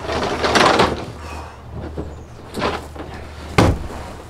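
Rustling and handling noises, then one sharp thump about three and a half seconds in, with a steady low hum underneath.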